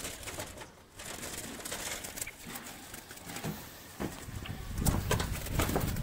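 Low cooing bird calls, with small caught birds fluttering and knocking against the wire mesh of trap cages in short rustles and clicks.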